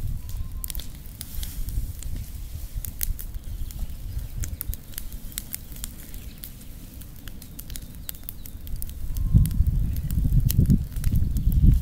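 Burning pile of dry leaves crackling, with sharp irregular pops and snaps. A low rumble underneath grows louder about nine seconds in.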